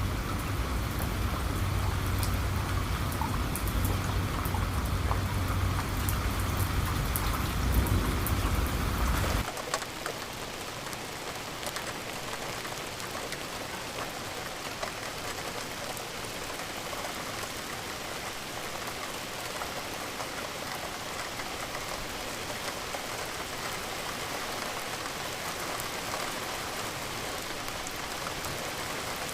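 Steady rain falling, with sharp drop ticks over a deep low rumble for about the first third; the rumble then cuts off abruptly and the rain continues as an even, slightly quieter hiss.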